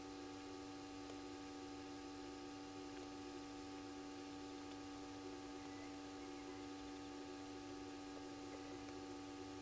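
Steady electrical hum made of several unchanging tones over a constant background hiss.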